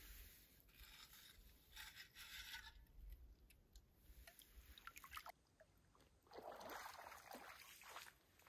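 Faint sloshing and trickling of shallow lake water as someone wades and lowers a can into it. In the second half, footsteps crunching on a gravel beach.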